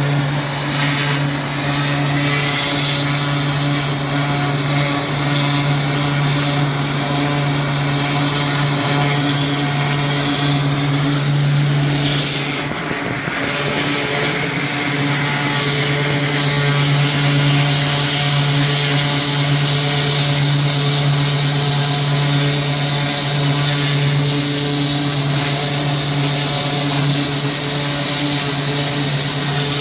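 A small gasoline engine runs steadily at constant speed under a strong hiss. It falters briefly about twelve seconds in, then settles back to the same steady note.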